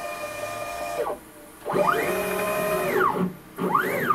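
Xylotex stepper motors of a homemade CNC router driving its half-inch eight-start lead screws through rapid moves at over 1,000 inches a minute blended: a whine of several tones that rises in pitch as the axes speed up, holds steady, then falls as they stop. One move ends about a second in, a full move follows after a short pause, and a short move rises and falls near the end.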